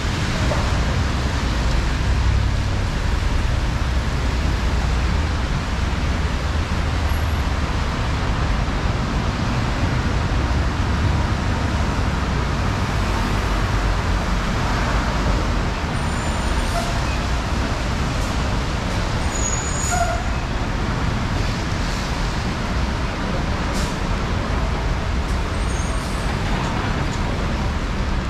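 City street in the rain: road traffic running on wet pavement, a low rumble under a steady hiss of rain. A few brief high-pitched squeaks come in the second half.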